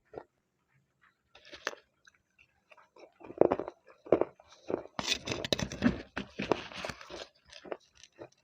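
A person biting and crunching slate pencil. A few separate crunches come first, then a dense run of crunching and chewing from about three seconds in, thinning out near the end.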